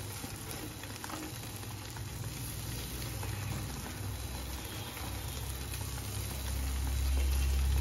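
Butter and oil sizzling gently in a nonstick pan as cubes of paneer are set down in it one after another, with a few faint soft taps. A low hum grows louder near the end.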